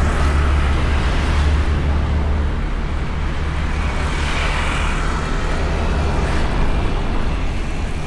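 Riding noise from a Honda Beat automatic scooter under way: a steady low wind rumble on the bike-mounted camera's microphone over the scooter's small engine and tyre noise. Traffic noise swells about four to five seconds in.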